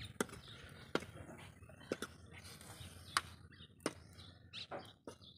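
Steel ladle stirring greens and chopped tomatoes in a wok, knocking sharply against the pan about once a second.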